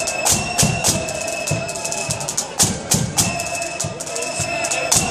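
Marching flute band playing a tune: the flutes hold long steady notes over sharp bass drum and snare beats.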